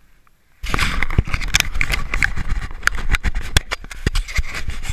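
Handling noise on a GoPro Hero 3 camera as it is picked up by hand: fingers grip and rub against it, giving a dense run of clicks, knocks and scrapes that starts suddenly about half a second in.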